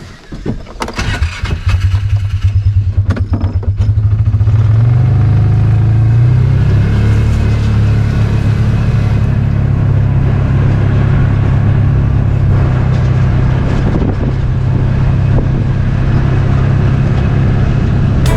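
A vehicle engine starting about a second in, running with an uneven pulse at first, then settling into a steady run.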